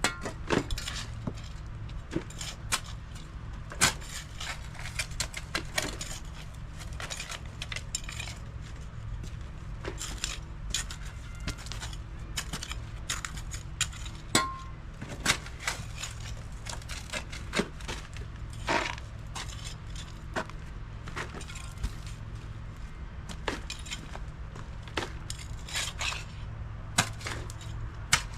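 Irregular clicks and clinks of small hard objects knocking together, dozens across the stretch, over a steady low hum.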